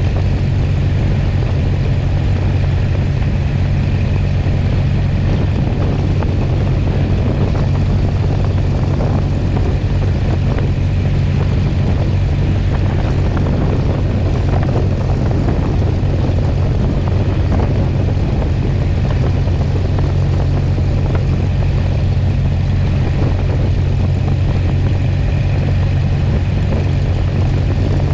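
Single-engine Cessna 177B Cardinal's four-cylinder Lycoming engine and propeller running steadily at low power while the plane rolls along the runway. A low, even engine drone is heard under a rush of air.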